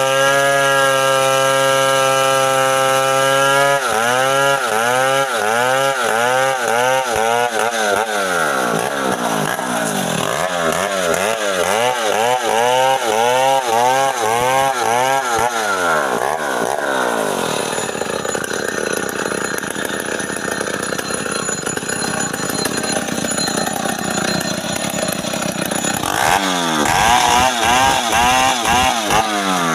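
Two-stroke chainsaw running at high revs while cutting guava wood. The engine note holds steady for the first few seconds, then rises and falls over and over as the chain loads and frees in the cut, more ragged in the middle and swelling again near the end.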